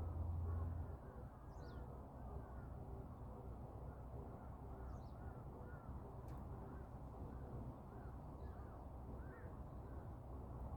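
A bird on a utility pole gives a strange call: a steady run of short, arching notes at about two a second, with a few higher chirps now and then.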